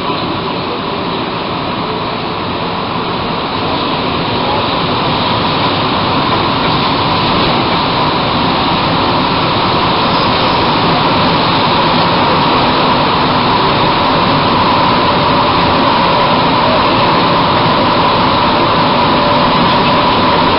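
Rubber-tyred Bombardier-Vickers MR-63 metro train running through a tunnel, heard from inside the car: a steady rumbling run with a constant whine that gets gradually louder.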